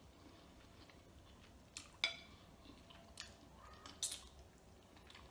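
Close-up eating sounds: chewing a chicken wing, with a few short, sharp wet mouth smacks. The loudest comes about two seconds in, and there is a cluster around four seconds in as she sucks her fingers.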